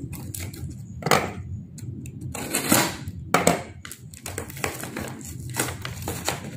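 Brown packing tape and wrapping being peeled and torn by hand from a cardboard parcel, in a series of short, irregular rips.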